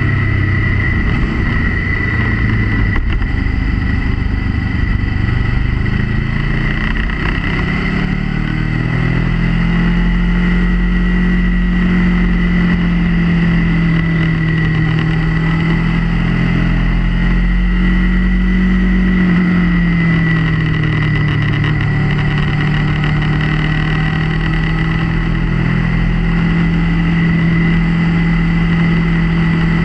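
Motorcycle engine running under way through bends, its pitch dropping in the first few seconds, climbing again from about seven to ten seconds in, and easing down around twenty seconds in, with a steady high whine throughout.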